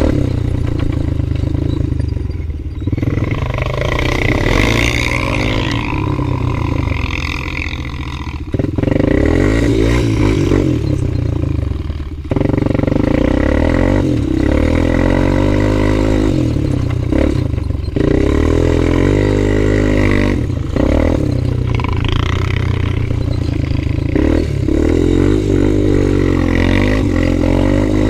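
Honda 250EX ATV's single-cylinder four-stroke engine running under riding load, heard from on board. It revs up and eases off over and over as the throttle is worked, and drops back briefly a few times in the first half.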